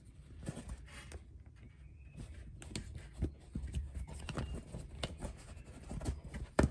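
Webbing strap being threaded and pulled through a buckle on a canvas soft-top hood: light rubbing and rustling of strap and canvas with scattered small clicks, the sharpest one near the end.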